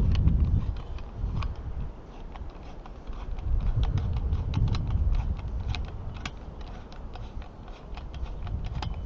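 Wind buffeting the microphone in gusts, loudest near the start and again around the middle, with many irregular light clicks from handling the CPE's mounting hardware.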